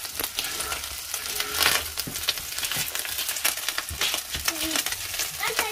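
Chopped bacon sizzling and crackling as it fries to crisp in a wide pan, stirred with a spatula.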